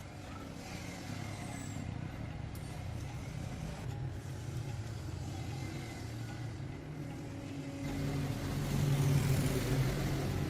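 A motor running steadily with a low hum, growing louder near the end.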